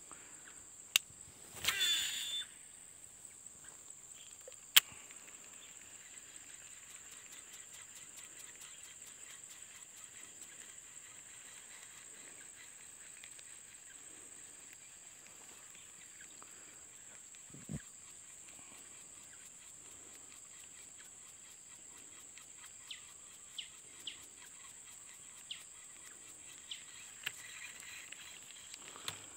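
Baitcasting reel cast: a sharp click, then the spool whirring as line pays out, its pitch falling, about two seconds in. Another sharp click a few seconds later, and scattered small ticks of the reel near the end, over a steady high drone of insects.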